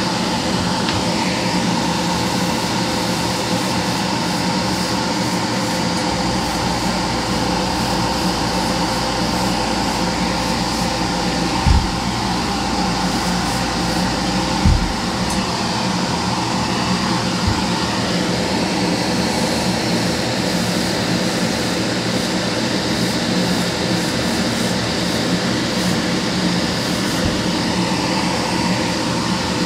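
Steady whir of a hobby spray booth's extractor fan running, with two brief low thumps near the middle.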